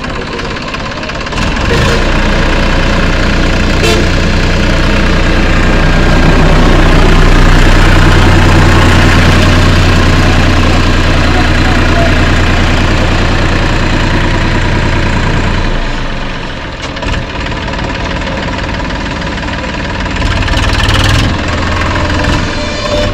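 TAFE 7250 DI tractor's diesel engine running steadily, run for a sound check. It grows louder about a second and a half in and eases back about fifteen seconds in, with a brief rise near the end.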